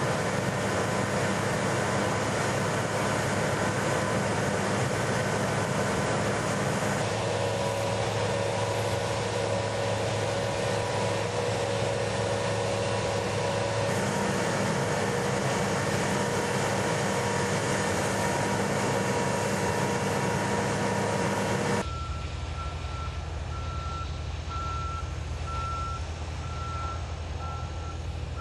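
Heavy construction machinery running steadily. About 22 s in, a motion-alarm beep starts, repeating about once a second, as from a crane or truck backing up.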